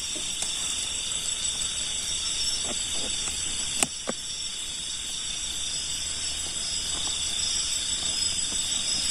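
Steady, high-pitched chorus of night insects, with a few sharp handling clicks about four seconds in.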